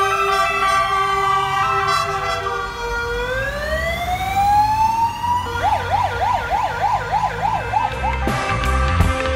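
Several ambulance sirens sound together as ambulances drive past, their slow wails gliding down and up over one another. About five and a half seconds in, one switches to a fast yelp of roughly three or four cycles a second. Near the end, music comes in.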